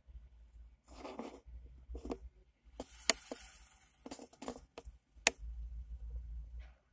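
Scattered clicks, taps and short rustles over a faint low rumble, heard inside a car cabin, with two sharp clicks about three and five seconds in as the loudest sounds.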